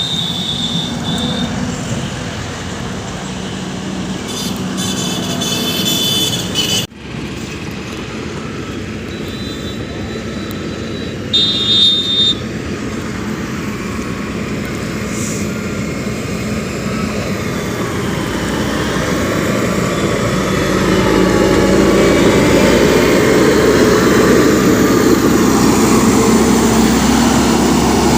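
Motor grader's diesel engine running, growing louder and busier in the last third. Short high-pitched tones sound near the start and again about twelve seconds in.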